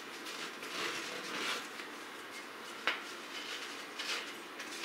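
Camouflage fabric wrap tape rustling as it is unwound and wrapped around a steel thermos, in several soft swells, with one sharp click about three seconds in.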